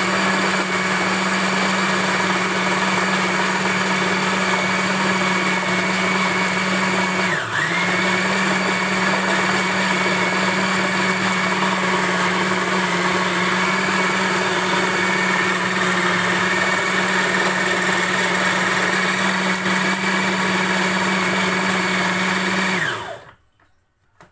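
Countertop blender motor running at a steady speed, grinding raw rice grains with milk into a fine liquid. About a third of the way in the motor briefly slows and recovers. Near the end it is switched off and winds down, falling in pitch.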